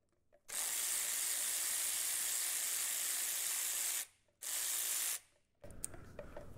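Cordless electric ratchet spinning out transmission oil pan bolts. It runs steadily for about three and a half seconds, stops, then gives a short second burst; quieter handling clatter follows near the end.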